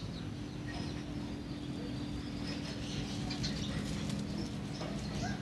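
Faint small clicks and scratches of fingers picking at soil and roots, over a steady low hum; a chicken clucks near the end.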